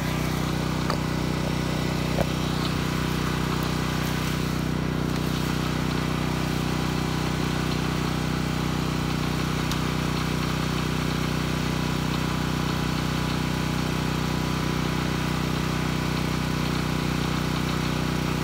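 Sportsman dual-fuel portable generator running steadily, warmed up, with an even engine hum. A couple of faint clicks come in the first few seconds.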